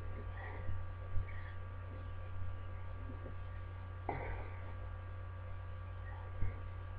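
Steady low electrical hum with faint high steady tones, broken by a few soft knocks, with no speech.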